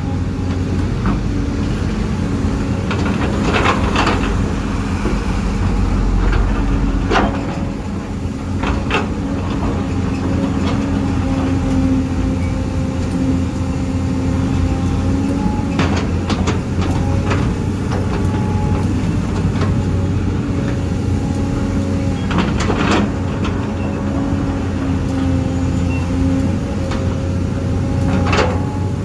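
Electric motors and plastic gearboxes of a Huina 1550 RC excavator whirring steadily as it works, the pitch shifting every few seconds as different functions start and stop. Sharp knocks break in about half a dozen times.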